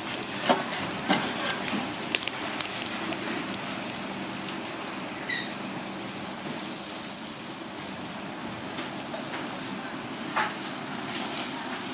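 Food sizzling on heat: a steady hiss with scattered crackles and pops. A brief high tone sounds about five seconds in.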